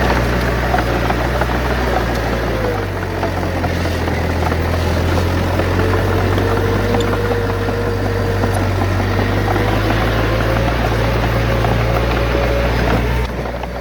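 Heavy diesel engine of earthmoving machinery running steadily under load, a low drone whose pitch steps about three seconds in and again just before the end.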